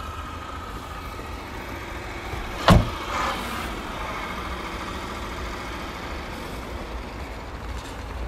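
A car's rear door slammed shut once, about two and a half seconds in, over a steady low rumble.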